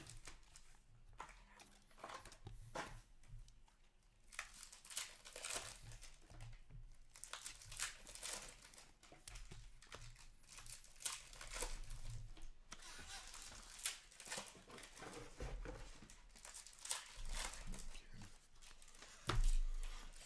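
Upper Deck Artifacts hockey card pack wrappers being torn open and crinkled, in irregular spurts of crackling, with a knock near the end.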